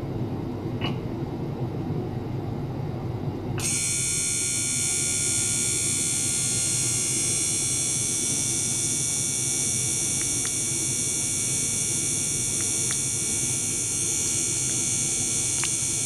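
Small liquid-circulation pump running with a steady low hum and rumble. About three and a half seconds in, a cluster of steady high-pitched tones switches on suddenly and holds, with a few faint ticks over it.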